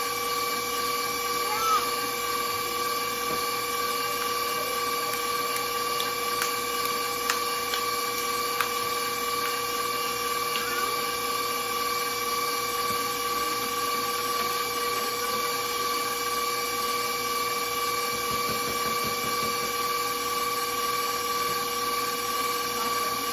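Electric stand mixer running at a steady speed with a constant whine, its wire whisk spinning through batter in a stainless steel bowl.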